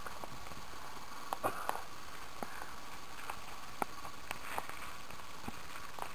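Sparse sharp clicks and crackles from a campfire over a steady hiss, with a brief rustle about one and a half seconds in as the foil-wrapped potatoes are handled.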